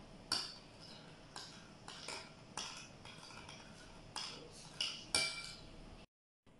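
A spoon clinking against a bowl again and again at uneven intervals while slime is stirred. The sound cuts out briefly near the end.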